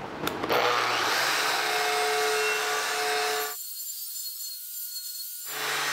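Angle grinder with a cut-and-grind disc grinding into a steel weld seam, a steady whine with a hissing edge, gouging the seam to dig out a line of incomplete fusion. For about two seconds in the middle the body of the sound drops out abruptly, leaving only a thin hiss, before it returns.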